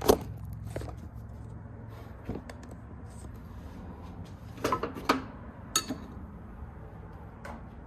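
A few scattered metallic clinks and knocks of hand tools working on an old outboard motor's carburetor fittings, over a low steady hum.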